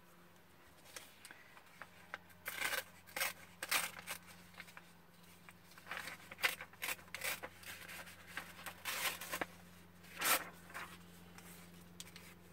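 Patterned scrapbooking paper being torn by hand and handled, in a series of short, irregular rips and rustles.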